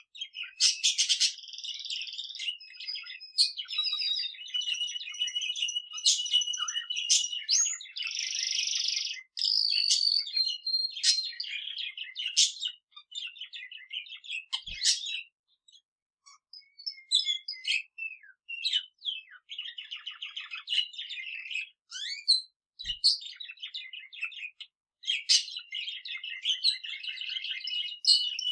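A budgerigar's chattering warble and a male canary's song together: fast chirps, clicks and trills, with two short pauses, about halfway and again about two-thirds in.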